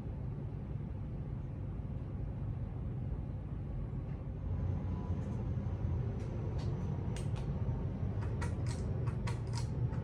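Hampton Bay Tiffany Sonoma ceiling fan running on high: a steady low whoosh of the blades with motor hum. From about halfway, a string of light metallic clicks and clinks of the pull chain being handled comes in, growing more frequent near the end.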